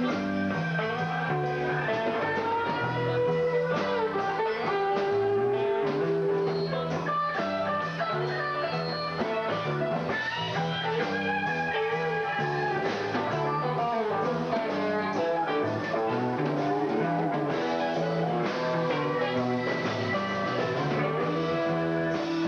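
Live rock band playing an instrumental passage: guitar lead lines that bend in pitch over a steady bass line. The sound is muffled, with no high treble.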